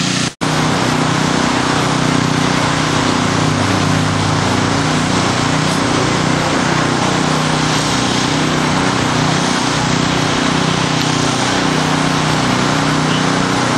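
Steady road traffic on a busy road, with vehicles passing continuously. The sound cuts out for an instant about half a second in.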